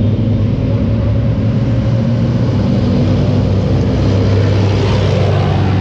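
Tracked main battle tank driving past: a steady low diesel drone with track clatter that swells and gets louder about four to five seconds in as it comes close.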